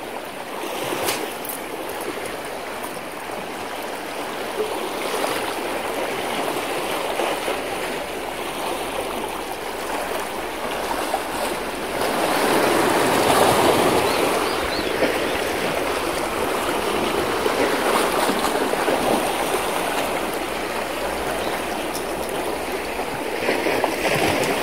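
Sea water washing and lapping against coastal rocks, a steady rushing that swells about twelve seconds in.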